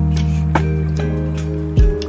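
Lo-fi hip-hop music: held bass notes and soft keyboard chords, with a light drum hit about half a second in and a kick drum near the end.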